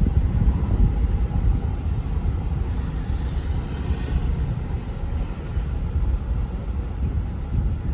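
A large vehicle on the move: a steady low rumble of engine and road noise.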